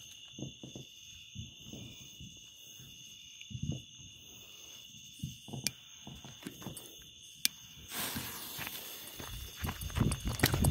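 Crickets chirping steadily while a lighter clicks twice, then a firework fuse catches and hisses about eight seconds in, followed by quick footsteps on gravel.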